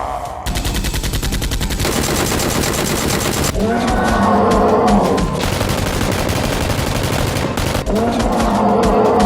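Rapid automatic gunfire, a long unbroken stream of shots starting about half a second in. Over it, a low bellowing cry comes twice, about four seconds in and near the end.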